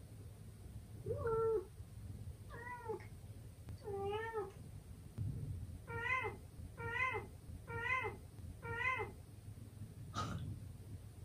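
Golden British shorthair cat meowing repeatedly, about eight meows, the last four coming about once a second. A brief sharp click near the end.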